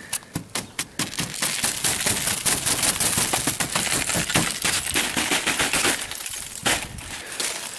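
A sheet of ice coating a stiff tarp cracking and crackling as it is handled: a rapid run of sharp snaps, thickest in the first second or so, then continuing crackle.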